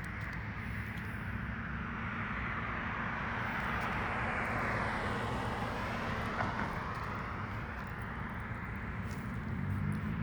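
A passing vehicle: its noise swells to a peak about halfway through, then fades.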